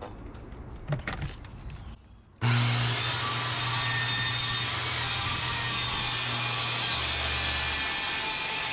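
Corded circular saw starting up about two seconds in, its motor whine quickly rising to full speed, then cutting steadily through a fiberglass boat deck. A few light handling clicks come before it.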